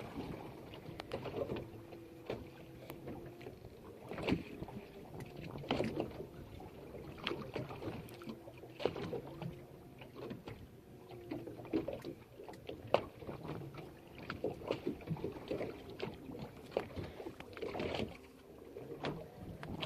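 Water sloshing against a fishing boat's hull, with scattered irregular knocks and clicks.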